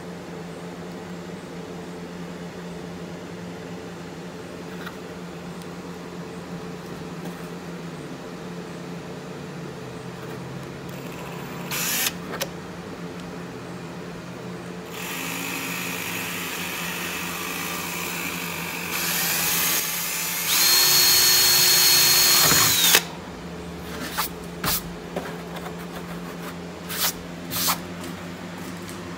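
Cordless drill with a twist bit boring a hole through a wide-body over-fender flare. A short burst of drilling comes about twelve seconds in. A longer run starts about three seconds later, speeds up in steps to a steady high whine and cuts off abruptly. Several sharp clicks and knocks follow.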